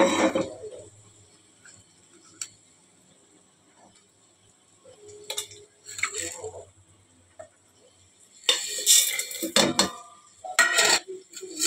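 Stainless-steel kitchenware clattering and knocking: a steel mixer-grinder jar and steel plates handled on a stone counter as whole spices go into the jar. Single knocks at first, with the loudest, busiest clattering near the end.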